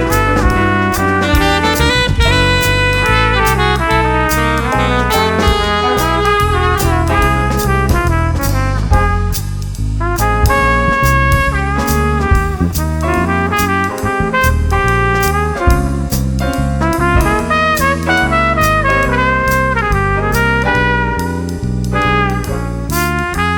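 Small jazz band playing: a horn melody, trumpet and saxophone, over a stepping bass line and drums keeping time with regular cymbal strokes.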